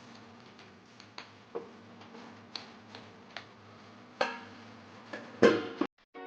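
Kitchen utensils clicking and knocking in irregular light taps, with two louder knocks about four seconds in and near the end, after which the sound cuts off suddenly.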